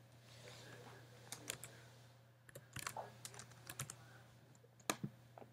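Faint, irregular keystrokes on a computer keyboard as a line of code is typed, the clicks coming in small uneven clusters.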